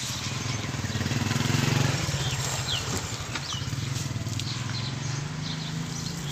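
A motor engine running steadily, louder about a second and a half in, over the wet squish and slosh of hands working sand-cement paste in a puddle of water. There are a few short bird chirps.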